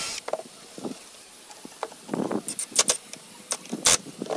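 A cordless drill's whir stops right at the start. Then come scattered knocks and light clicks of wooden braces and cordless tools being handled and positioned, with the sharpest knock near the end.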